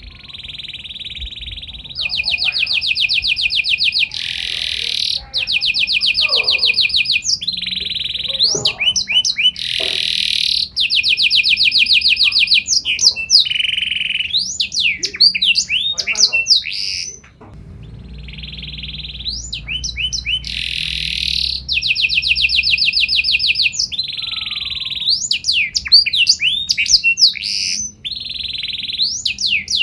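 Domestic canary singing a long, loud song of rapid trills and fast sweeping notes, with a short break about seventeen seconds in.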